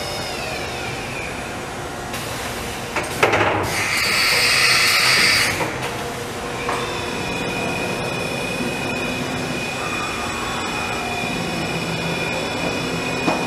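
Hurco VM-1 CNC vertical machining center running under power. Its high whine falls in pitch in the first second, a loud hiss comes in about three seconds in and lasts a couple of seconds, and a steady high whine settles in from about seven seconds on.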